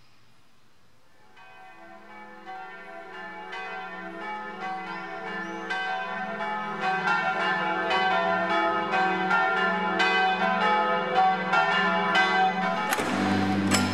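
Church bells ringing a peal: many overlapping strikes that fade in about a second in and grow steadily louder. Just before the end a different, louder sound cuts in abruptly.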